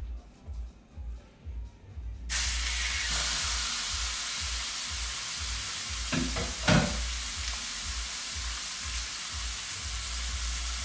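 Tri-tip steak searing in hot oil in a cast iron skillet: the sizzle starts suddenly about two seconds in, as the meat goes into the pan, and then holds steady. There are a couple of knocks around the middle.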